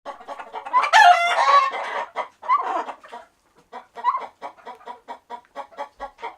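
Chickens: a loud, drawn-out call about a second in, then a steady run of short clucks, about three a second.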